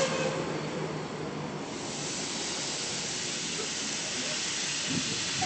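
Steam hissing from a steam locomotive on a heritage railway. A loud high hiss dies away about one and a half seconds in, leaving a steady, softer hiss.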